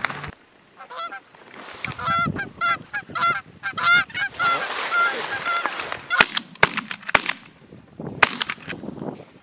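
Canada geese honking rapidly and repeatedly, followed from about six seconds in by several shotgun shots in quick succession.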